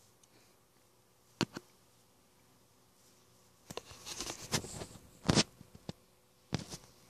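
Close handling noise from a small plastic vinyl figure being turned in the fingers: a few sharp clicks, then a short busy stretch of rubbing and tapping a little before the middle, with the loudest knock just after it and two more clicks near the end.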